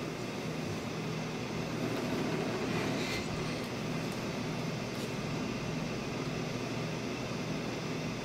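Steady background hum and hiss of room noise, with a couple of faint soft rustles.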